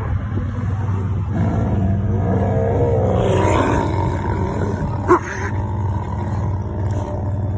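A tiger growling and snarling while play-fighting with a husky, over a steady low hum. A sharp click about five seconds in.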